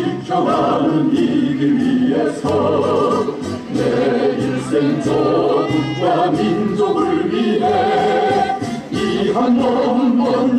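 A group of voices singing a hymn together, moving between long held notes.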